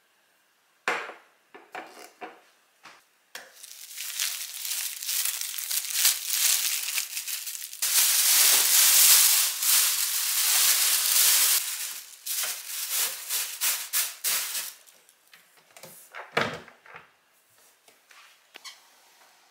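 Thin plastic bin bag rustling and crinkling as it is handled and gathered, a long crackling stretch loudest in the middle, after a few light knocks at the start. A single dull thump comes near the end.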